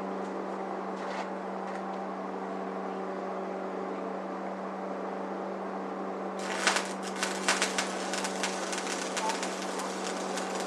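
Stick welder humming steadily, then about two-thirds of the way in an arc is struck on a 7018 electrode and crackles and pops irregularly.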